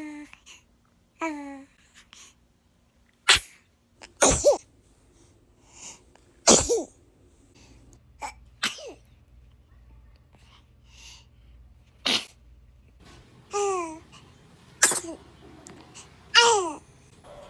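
A baby sneezing about five times in sharp, sudden bursts, with short babbling coos between the sneezes.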